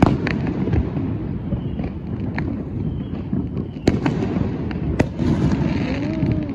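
Fireworks going off: sharp bangs right at the start and again about four and five seconds in, with smaller cracks between them over a steady low rumble of more distant explosions.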